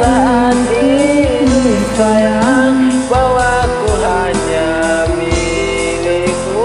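A man's voice singing a held, gliding melody over a karaoke backing track with a steady beat.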